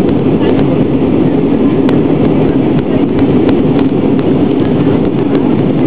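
Steady jet engine and airflow noise heard inside the passenger cabin of an easyJet airliner in flight.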